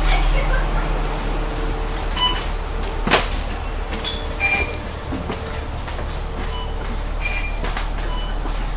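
Inside an Alexander Dennis double-decker bus standing with its engine running: a steady low engine hum, a sharp knock about three seconds in, and a few short beeps now and then.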